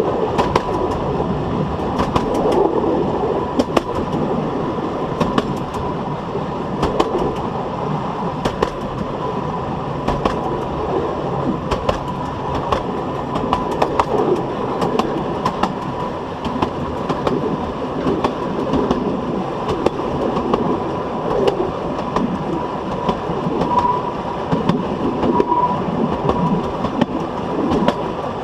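Steel wheels of a 760 mm narrow gauge coach rolling at speed over jointed track: a steady rumble with sharp clicks every second or so, often in quick pairs, as the wheels strike the rail joints, and a faint steady whine.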